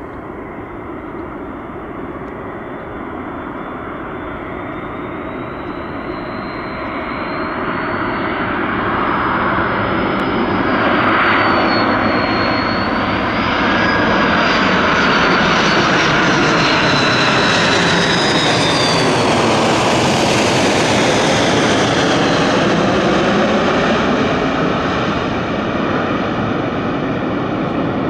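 Iberia Airbus A330-200 airliner's jet engines on landing approach, growing louder as it comes in, then passing overhead with a whine that slides down in pitch as it starts to recede near the end.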